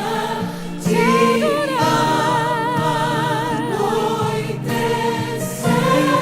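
Choir singing a gospel worship song, holding long notes with vibrato over a steady musical backing.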